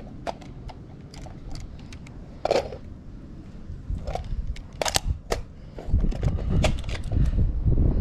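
Scattered sharp clicks and knocks at irregular intervals. From about six seconds in, a low wind rumble on the microphone grows louder beneath them.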